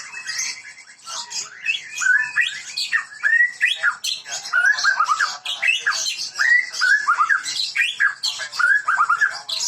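White-rumped shama (murai batu, Medan type) singing a fast, varied song of quick sliding whistles and chattering notes.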